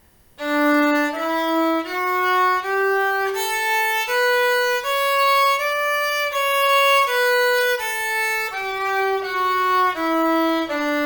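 Viola playing a one-octave D major scale with the bow, one even note at a time, climbing from D to the D an octave above and stepping back down to end on a long-held low D.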